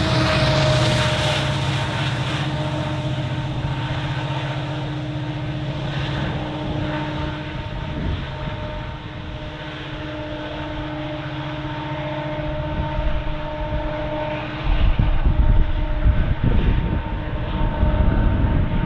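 Diesel locomotives of a freight train running with a steady droning whine of several held tones. About fifteen seconds in, a deeper, rougher rumble of the train on the rails comes in and grows louder.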